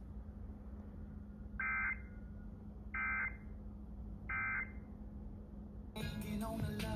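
Emergency Alert System end-of-message code: three short bursts of two-tone digital warbling, a bit over a second apart, over a steady low hum. About six seconds in, a louder, harsher burst of buzzy digital noise begins.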